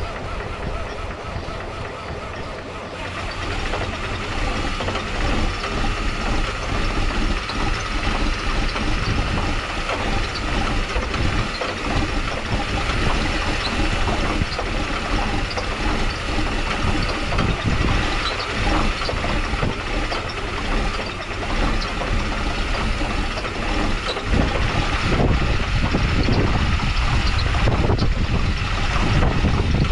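John Deere 4430's six-cylinder turbo diesel engine running just after a cold start. It grows louder about three seconds in, and louder again a few seconds before the end.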